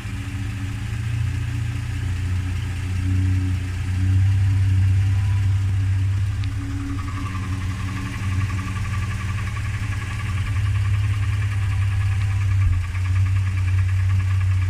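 Toyota Land Cruiser / Lexus LX450 inline-six engine idling steadily, heard from the engine bay. A faint, regular tick-like pulsing in the higher tones runs from about halfway through. The owner is chasing a knock here that he suspects comes from the power steering pump.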